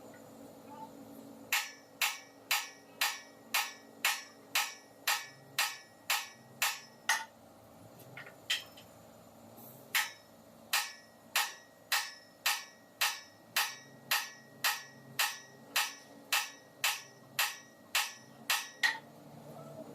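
Hammer strikes in a steady rhythm of about two sharp blows a second, with a pause of a couple of seconds in the middle.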